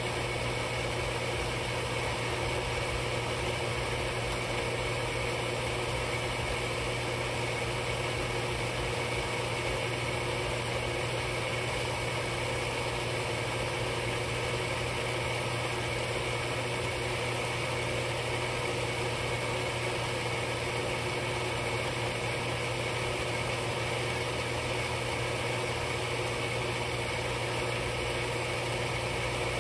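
A machine running steadily: an even low hum with a thin high whine above it.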